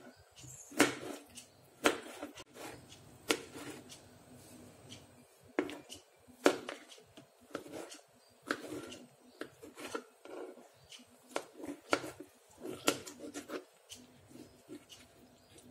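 A kitchen knife cutting mango flesh into cubes, the blade tapping irregularly on the plate underneath with a dozen or so sharp clicks.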